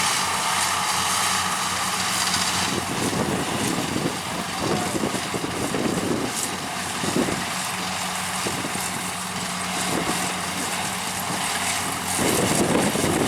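Kubota DC-70 combine harvester running as it cuts rice: a steady engine drone with the clatter and rush of its machinery.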